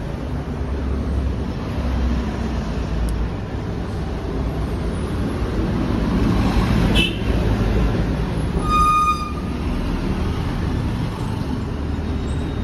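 Steady road-traffic rumble, with a short high beep about nine seconds in.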